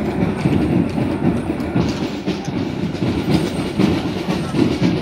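Two-horse dray rolling over brick paving: hooves clopping and cart wheels rumbling in a steady, uneven clatter.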